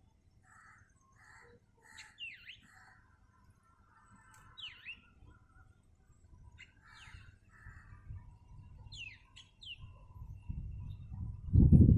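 Small songbirds chirping: scattered short, sweeping chirps and brief twittering notes, several birds calling back and forth. Near the end a loud low rumbling noise sets in over them.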